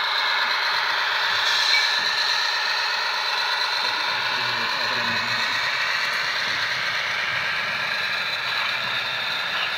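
ESU model of a DB class 215 diesel locomotive running through turnouts, its sound decoder's loudspeaker playing a steady high-pitched wheel squeal over the locomotive's running sound.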